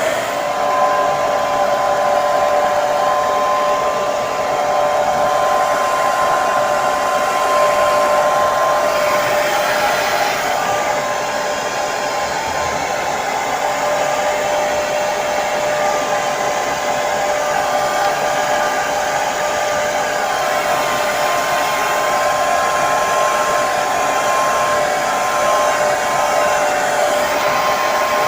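Hair dryer running steadily: a continuous blowing whoosh with a steady motor whine held on one pitch.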